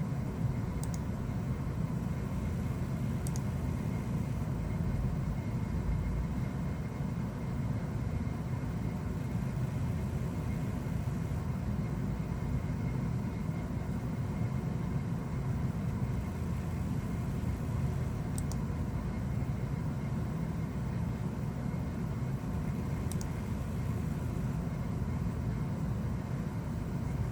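Steady low rumble of background noise, with a faint steady hum above it and a few faint, sharp ticks.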